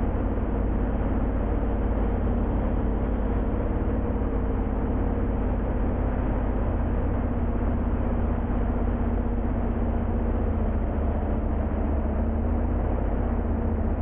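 Pulling tractor's V8 engine running steadily at low revs, heard from inside the cab, with a deep even rumble and a steady pitch that neither rises nor falls.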